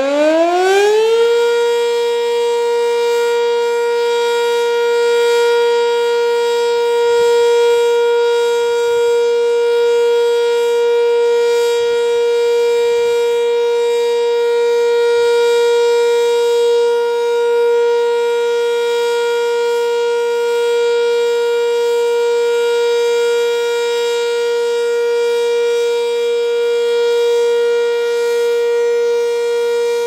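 Sentry 10V outdoor warning siren sounding a tornado-siren test: it finishes winding up to full pitch about a second in, then holds one steady, loud tone.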